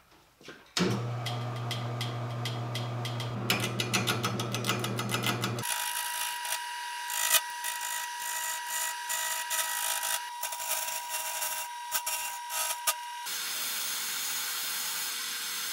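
Wood lathe motor starting with a steady hum about a second in, then a turning gouge cutting the outside of a spinning segmented baltic birch plywood bowl with a rapid, rhythmic scraping as it rough-turns the blank round.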